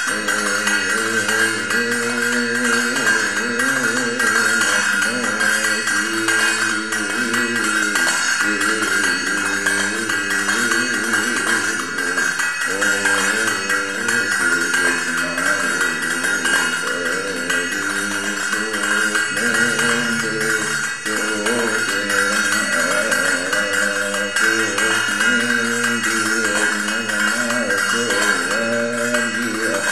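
A Coptic monk chanting a hymn in praise of the Virgin Mary, one male voice in a long, winding melismatic line, with a steady metallic jingling ringing behind it.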